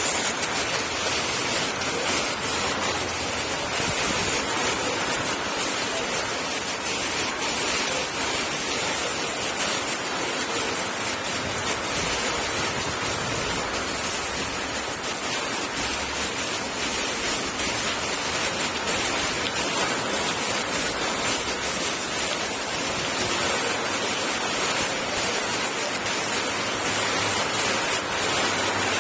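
Heavy monsoon rain falling steadily, a dense, even hiss.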